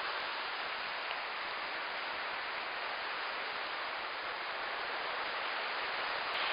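Steady hiss of surf washing onto a sandy beach.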